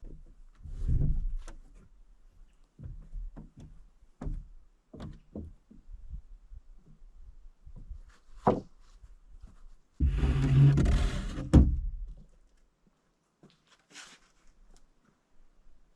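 Loose wooden deck planks being handled, with irregular knocks and thunks of boards against each other and the deck, and a louder two-second rush of noise about ten seconds in.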